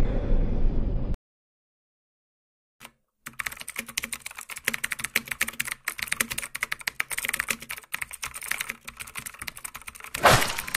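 Keyboard-typing sound effect: a fast, dense run of key clicks that starts after a silent gap a few seconds in, over text being typed out on screen. The tail of an intro sting cuts off about a second in, and a short, loud rush of noise comes near the end.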